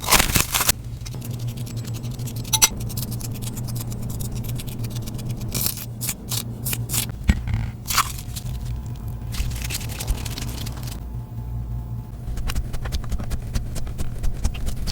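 Homemade toothpaste slime being worked and stretched, giving a dense run of small crackling pops and sticky scraping.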